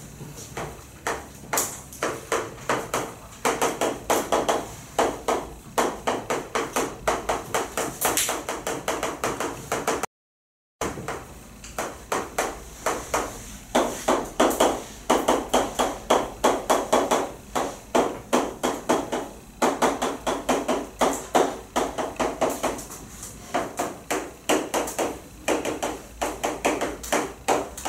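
Chalk writing on a blackboard: quick runs of sharp taps and short strokes as equations are written, with a brief gap of silence about ten seconds in.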